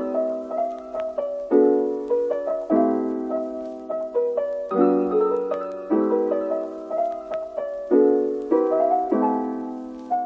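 Background music: a gentle solo piano piece, with chords struck every one to two seconds, each fading before the next.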